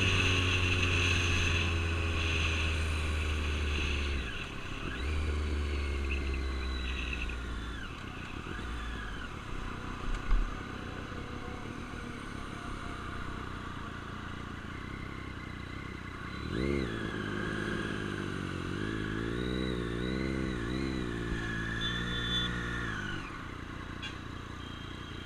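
Motorcycle engines: over the first few seconds an engine's note slides down in pitch, then, about two-thirds of the way through, an engine is revved in a run of quick blips, its pitch rising and falling several times before dropping back.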